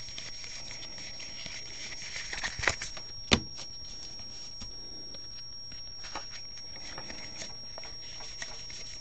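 Baseball trading cards flipped through by hand: soft sliding and flicking of card stock against card stock, with a sharp tap about three seconds in.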